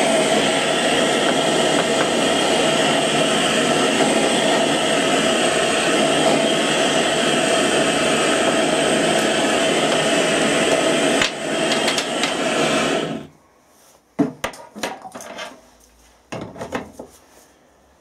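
Gas blowtorch flame burning with a steady, even roar as it heats a bronze fusible plug to melt the lead out of it. About 13 seconds in the torch cuts off suddenly, followed by a few sharp metallic knocks and clicks.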